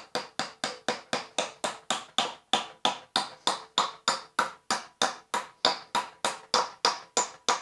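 Hammer driving a nail into a wooden 4x4 post, with steady repeated blows about three a second.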